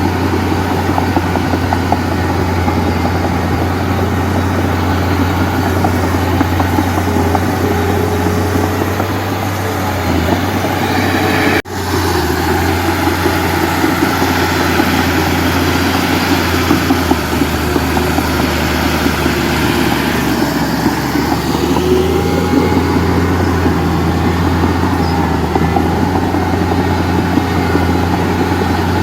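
Heavy diesel engine running steadily with a deep drone, broken by a momentary dropout about twelve seconds in.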